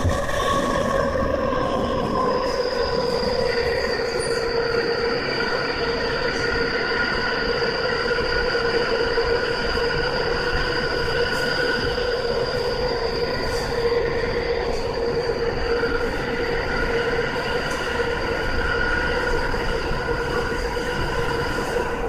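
Tokyu 5000 series subway train running at speed, heard from inside the car: a steady whine from its Hitachi IGBT VVVF inverter and traction motors, with several held tones over wheel and track rumble. The high whine cuts off at the very end.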